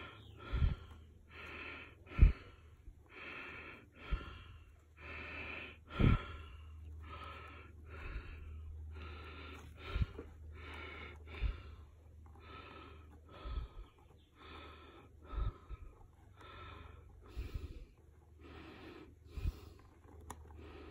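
A man breathing close to the microphone, about one breath a second, while he concentrates. There are a few dull low bumps over a steady low hum.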